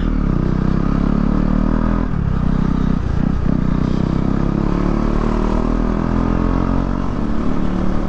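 KTM motorcycle's single-cylinder engine running steadily while riding at low speed, heard from the rider's seat. Its note dips briefly about two to three seconds in.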